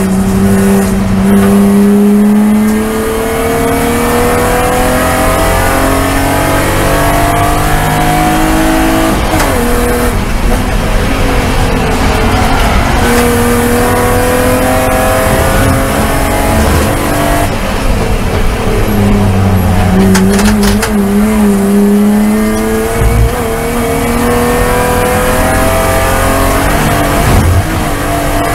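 BMW E36 Spec3 race car's straight-six engine heard from inside the cockpit at racing speed: the engine note climbs steadily, drops back at each upshift and climbs again. About two-thirds of the way through it eases off and wavers for a corner, then pulls hard and rises again.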